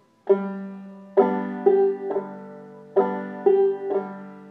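Five-string banjo played clawhammer style: a single struck note, then two rounds of three quick strikes and strums, each ringing and dying away between strikes.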